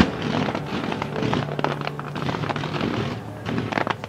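Fireworks shells bursting: a sharp bang at the start, then a dense run of crackles and pops.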